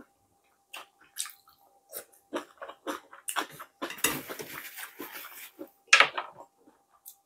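Close-miked eating sounds of a person chewing fried tilapia: wet mouth clicks and smacks, a denser stretch of chewing noise in the middle, and a sharp, louder smack about six seconds in.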